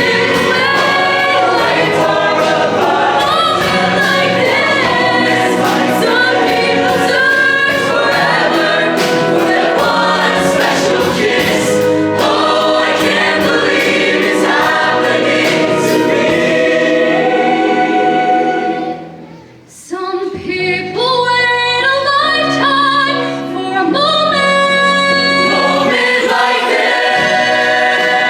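Show choir singing a pop number in full voice over a band with a steady beat. The music drops out sharply for a moment about two-thirds of the way through, then comes back in.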